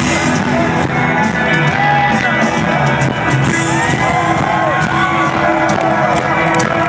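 Live rock band playing through an arena sound system, loud and distorted as recorded close up in the crowd, with many audience voices cheering and shouting over it.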